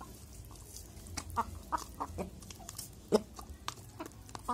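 Young domestic chickens clucking in short scattered calls while pecking feed from a hand-held plastic cup, with quick sharp taps of beaks on the cup.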